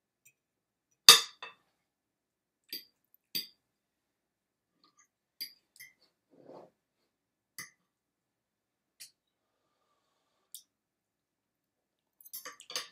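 Metal forks clinking against dinner plates in scattered single strikes, the loudest about a second in, with a quick cluster of clinks near the end.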